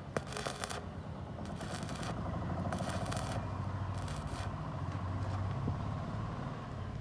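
Arc welding: several short bursts of crackling sizzle about a second apart, over a low steady hum.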